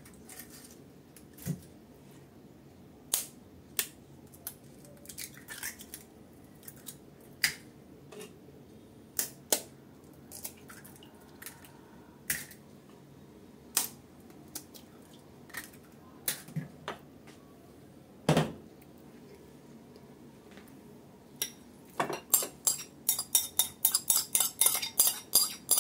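Eggs being cracked on a glass mixing bowl: separate sharp taps and clinks every second or two. Over the last few seconds a quick run of clinks comes as a utensil works against the dishes while food is tipped from a plate into the bowl.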